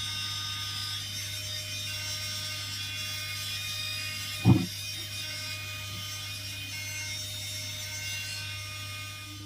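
Handheld rotary tool running steadily with a small polishing wheel pressed on the gold necklace: a steady whine over a low hum. A brief louder sound about halfway through.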